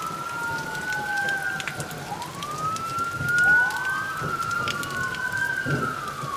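Police car sirens wailing, sounded to warn of a nearby tornado: two sirens out of step, each rising and falling slowly over a couple of seconds. Light rain patters underneath.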